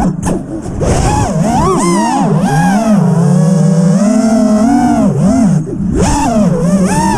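Freestyle FPV quadcopter's brushless motors whining, the pitch rising and falling continuously with the throttle, with brief throttle chops about half a second in and again near the end.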